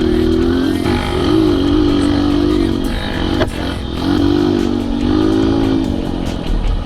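Off-road vehicle engine running, its pitch rising and falling repeatedly as the throttle opens and closes, with one sharp click about three and a half seconds in.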